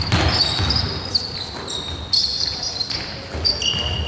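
A basketball being dribbled on a sports-hall floor, with players' trainers squeaking in short, high chirps as they run and change direction.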